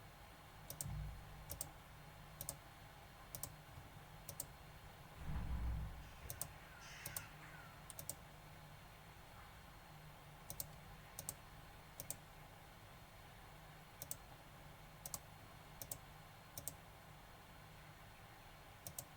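Computer mouse clicking, single clicks at irregular intervals of about a second, as the buttons of a calculator program are pressed to test it. Two dull low thumps, about a second in and around five and a half seconds in, are the loudest sounds.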